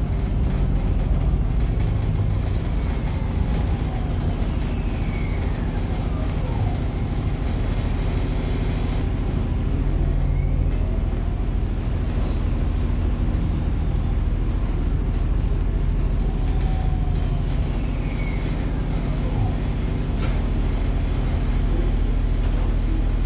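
Interior sound of a 2007 Orion VII 30-ft transit bus under way: its engine and drivetrain run steadily, with the pitch shifting as the bus speeds up and slows down, and a few faint whines slide up and down.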